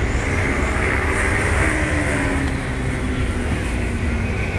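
Ice speedway motorcycles' single-cylinder engines running at race speed as the riders lap the track, with the engine note rising and falling.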